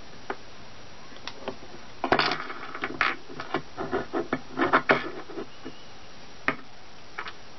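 Scratching, rubbing and light clicking as pipe cleaners are twisted by hand onto a small lathe's bed. The sounds come as a dense cluster from about two seconds in, lasting some three seconds, with a few single clicks before and after.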